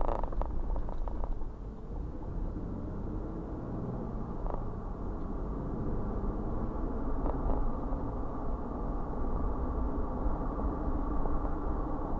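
Berkshire and Eastern freight train rolling past: a steady rumble of wheels on rail, with a few faint clanks.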